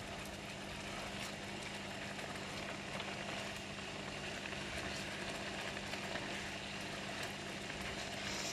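Ginger-scallion sauce simmering and sizzling steadily in a wok around raw patin fish fillets, with a steady low hum underneath.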